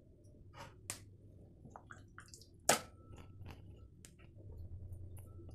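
Soft wet squishing and scattered small clicks as natural yogurt is spooned onto a raw chicken breast in a glass bowl and worked into the meat by hand, with one sharper knock nearly three seconds in.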